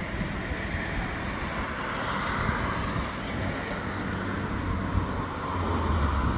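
Cars passing on a road, a steady rush of tyres and engines that grows louder near the end as one passes close.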